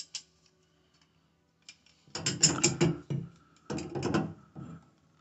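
Slip-joint pliers clicking and clattering against the shower valve's metal nut as they are fitted and turned. After about two seconds of near quiet there are two bursts of rapid clicks, the second near four seconds in.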